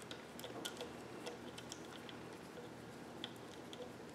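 Faint, irregular light metallic clicks and ticks of a screwdriver and small screws being worked loose and handled on an espresso grinder's metal housing.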